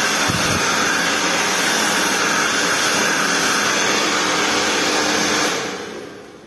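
Handheld hair dryer blowing steadily, then switched off about five and a half seconds in and winding down over about a second.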